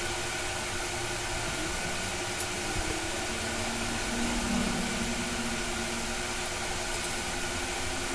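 Steady machine hum with a hiss, with a few faint ticks.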